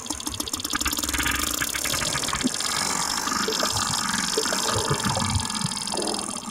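Sperm whale clicking underwater: a rapid train of sharp clicks over the steady noise of the sea, ending suddenly near the end.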